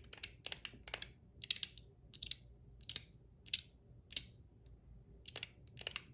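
Metal fidget clicker being clicked repeatedly: sharp metallic clicks, often in quick pairs, about two a second, with a brief pause near the end.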